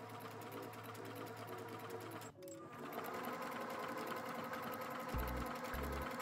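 Computerized JUKI sewing machine stitching at speed, a fast, even needle rattle, with a brief break about two and a half seconds in. Low thumps come in near the end.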